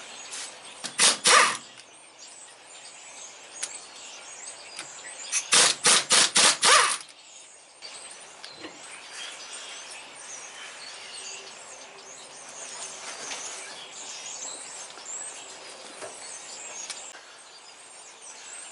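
Tool work on the truck driveshaft's U-joint cap bolts: a brief loud clatter about a second in, then five or six quick loud clacks around six seconds in. Birds chirp in between.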